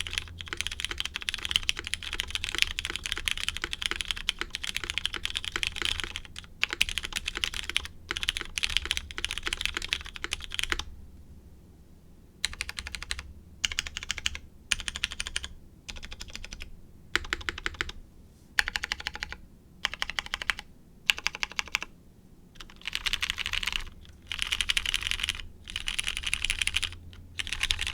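Typing on a mechanical keyboard with lubed Cherry MX Hyperglide Brown tactile switches, GMK keycaps and a polycarbonate plate: fast continuous keystrokes for about the first eleven seconds, then short bursts of typing separated by brief pauses.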